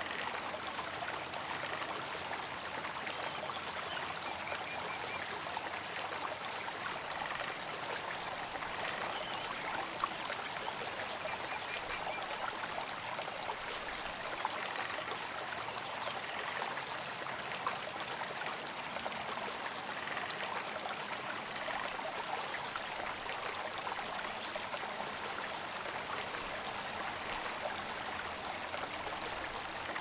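Steady rush and splash of running water from a small waterfall. Behind it are a faint, evenly repeating insect chirping and a couple of brief high bird chirps.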